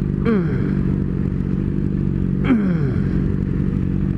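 Motorcycle engines running steadily, with a sharp falling pitch sweep twice: about a third of a second in and again about two and a half seconds in.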